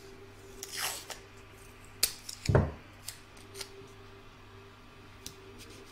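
Sticky tape being pulled off its roll and torn, a short ripping sound about a second in, then a sharp click and a dull knock as the strips are handled and pressed down at the corners of the fabric on the embroidery hoop, with a few light taps after.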